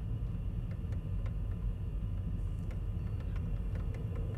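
Steady low rumble with a faint hum, and a few soft ticks scattered through it.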